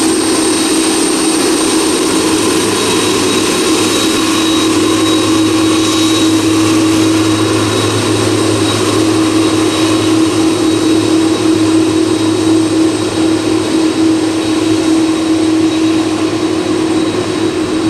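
Four jet engines of a Boeing 747-400 freighter running at low taxi power as it taxis and turns away. A steady, loud rush of noise carries a constant mid-pitched drone and thin high whining tones, and the low hum fades near the end.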